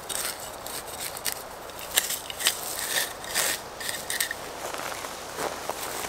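Dry soil, pine litter and grass being scraped and raked back into a small dug hole by hand and with a Deuce of Spades trowel, giving a run of crackles, scrapes and small clicks. Near the end a hiking boot steps down onto the filled hole.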